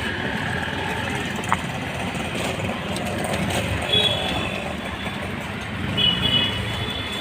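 Busy street ambience: a steady wash of traffic and crowd noise, with a sharp click about one and a half seconds in and short high-pitched tones around four seconds and again near six seconds.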